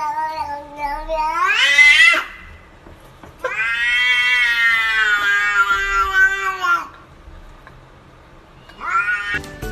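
Domestic cat giving long, drawn-out meows, three in all: one that rises in pitch at its end, a longer one of about three seconds that sounds like "whyyy", and a short rising one near the end.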